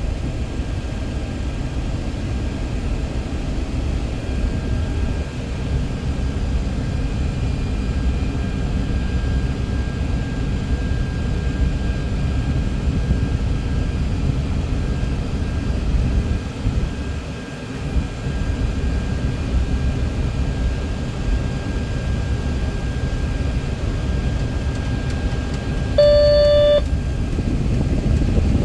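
Steady rumble of a Boeing C-17 Globemaster III's four Pratt & Whitney F117 turbofans running at low power, heard inside the cockpit, with faint steady whines over it. Near the end a single short electronic cockpit chime sounds.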